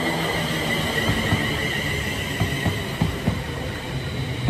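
Class 350 Desiro electric multiple unit, a pair of units (350126 leading), passing through the station at speed. It runs with a steady high whine and, from about a second in, an irregular run of wheel knocks over the track.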